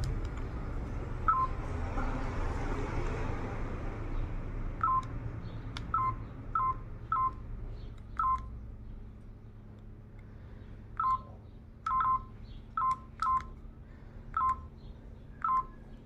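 Doro HandleEasy 330GSM mobile phone keypad being pressed: about a dozen short beeps of the same pitch, each with a light button click, spaced irregularly.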